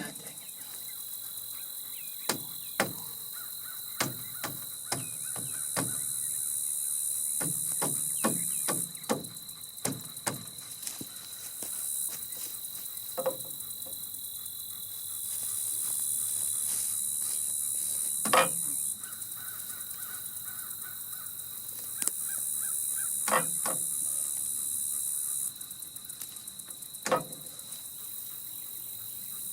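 Crows cawing now and then over a steady high buzz of insects that fades and returns in stretches, with scattered short knocks and taps.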